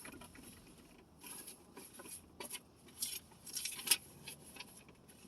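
Close-up eating sounds from a Popeyes fried-chicken meal: scattered crackly rustles and clicks, thickest and sharpest a little before four seconds in.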